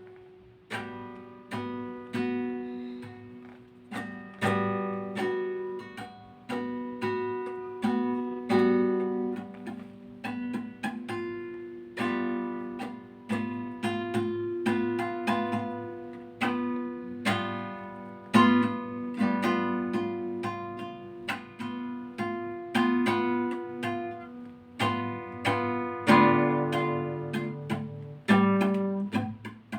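Acoustic guitar playing a wordless tune, chords struck one after another, each ringing out and fading before the next.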